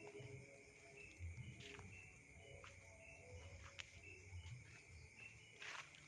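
Faint chorus of night insects: a steady high trill, with short chirps repeating about twice a second and a few soft clicks.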